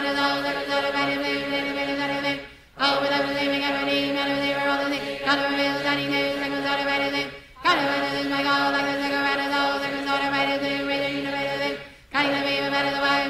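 Voices chanting a decree rapidly on a near-monotone pitch, in long unbroken runs cut by short gaps about every four to five seconds.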